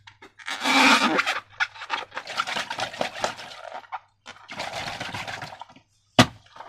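Slime being squeezed and worked, a wet, sticky squelching and crackling in two stretches, with a single sharp tap near the end.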